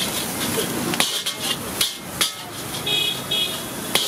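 Metal spatula clanging and scraping against a large iron wok while stir-frying rice, with about four sharp clangs over a steady sizzle.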